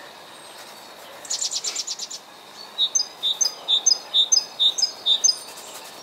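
Songbirds singing in spring: a quick high trill of about eight notes, then a repeated two-note phrase, high then lower, sung six times in a row.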